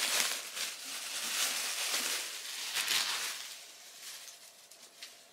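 Packaging rustling and crinkling as a book is unwrapped by hand, busiest in the first three seconds and fading out after about four.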